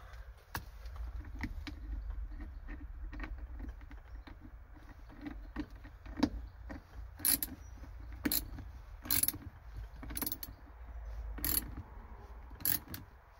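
Socket ratchet wrench clicking as a seat-belt anchor bolt is tightened. Through the second half the clicks come in strokes about once a second.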